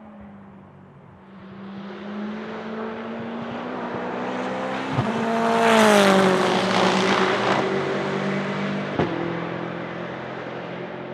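Aston Martin Vantage GTE race car with its 4.0-litre twin-turbo V8 at speed: it approaches, passes close about six seconds in with a drop in engine pitch, then fades away. Two sharp cracks stand out, about five and nine seconds in.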